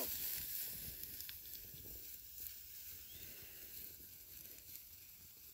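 Tall dry grass rustling as a flock of sheep pushes through it, a soft, steady hiss that slowly fades.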